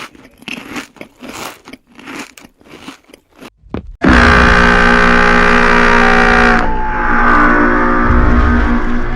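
Cartoon sound effects: a quick run of crunching, bite-like hits, about three a second, then from about four seconds in a loud, harsh, steady blare that changes slightly midway through.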